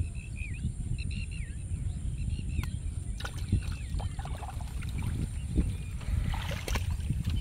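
Water splashing and sloshing in a water-filled plastic crate as small fish and snails are shaken out of a China net trap into it, with scattered clicks and splashes that grow louder near the end, over a steady low rumble.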